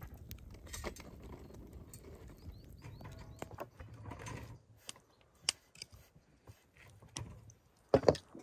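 Wood fire crackling and rumbling under a convex iron saj griddle, with scattered sharp pops. After about four and a half seconds it gives way to quieter handling clicks at a wooden table, and a loud knock comes near the end.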